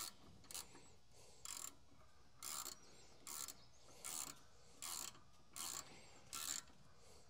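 Socket ratchet being worked in short back-strokes to tighten a brake caliper bolt: eight brief bursts of pawl clicking, about one a second.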